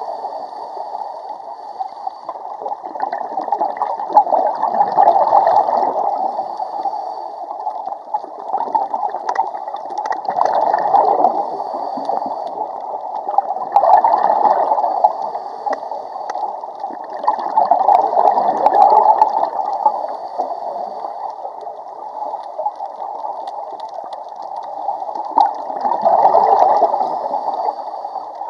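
Scuba diver breathing through a regulator underwater: exhaled bubbles gurgle and bubble up in swells every few seconds.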